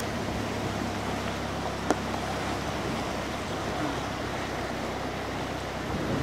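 Fast, choppy river water rushing steadily, with wind rumbling on the microphone, and one short sharp click about two seconds in.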